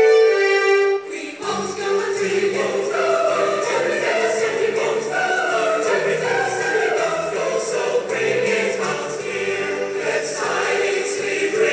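Background music: a sustained instrumental melody ends about a second in, then a choir sings.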